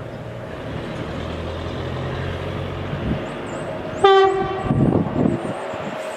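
Steady low vehicle hum, then about four seconds in one loud, short horn blast on a single high note, cut off after less than half a second and followed by a brief rougher rumble.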